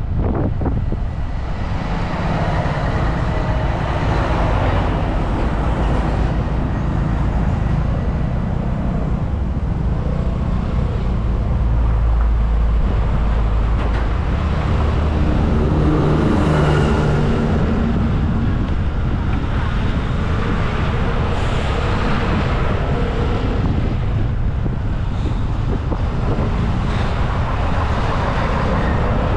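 Riding a motorcycle through traffic: a steady rumble of the bike's engine, tyre and road noise and wind on the microphone, with cars and trucks close alongside.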